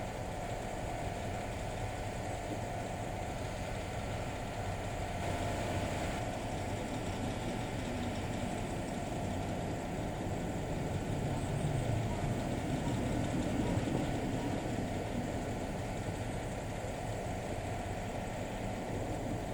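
An engine idling steadily: a continuous low hum with a faint steady whine over it.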